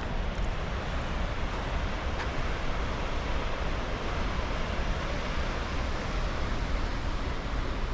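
Steady rushing noise of the Ausable River running high and fast after a flood.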